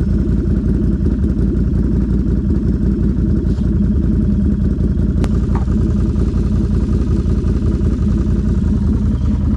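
Four-wheeler (ATV) engine running steadily with its fuel tank nearly empty. There is a single sharp click about five seconds in.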